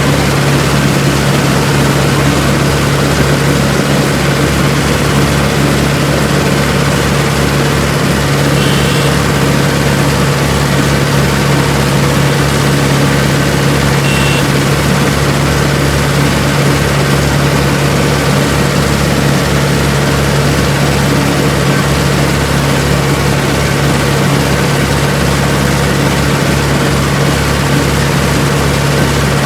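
Tractor diesel engine running steadily at one constant speed, a continuous low hum with no revving.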